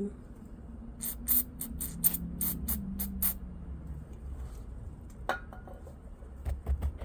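Aerosol contact cleaner sprayed onto window switch contacts in about nine short squirts over two seconds. A sharp click follows, then a few lighter taps near the end.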